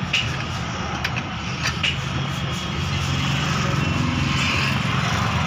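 A motor vehicle's engine runs with a steady hum. A few sharp clicks, about three in the first two seconds, come from hand work on a drum brake assembly as its brake shoes are fitted.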